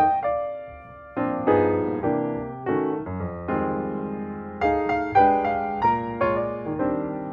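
Background piano music: chords and notes struck every second or so, each fading away, with a brief quieter gap near the start.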